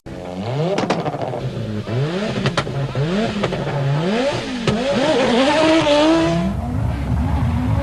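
Audi Sport quattro S1 rally car's turbocharged five-cylinder engine accelerating hard, its note climbing and dropping through about five quick gear changes, with sharp cracks around some of the shifts. Near the end the sound settles into a steadier, deeper drone.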